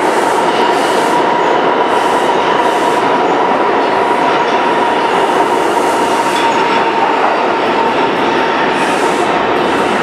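Subway train running out past the platform of an underground station, with a loud steady rush of wheels on rails and a held high whine that fades out about seven seconds in.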